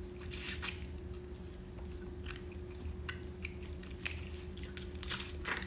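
Eating boiled crawfish close to the microphone: chewing and sucking, with scattered small cracks and wet squishes as gloved hands peel the shells, over a faint steady hum.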